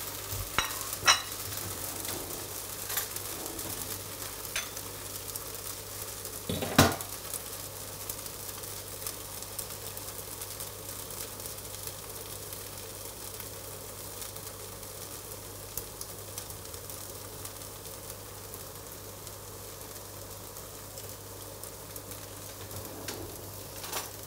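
Pancake batter sizzling steadily in a frying pan on the stove, with a few sharp clicks and knocks, the loudest about seven seconds in.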